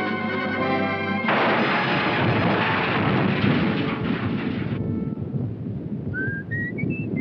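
Cartoon soundtrack: music, then a little over a second in a loud, long rumbling crash like an explosion or thunder that dies away into a low rumble. Near the end a few short notes climb upward step by step.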